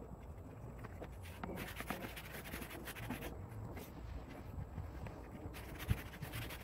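A strip of leather scraping and rustling against a wooden board as it is handled, with a single soft knock near the end as it is laid down on the board.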